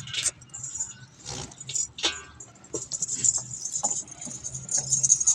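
A few scattered clicks and rustles, then, from a little over halfway through, fast continuous metallic jingling.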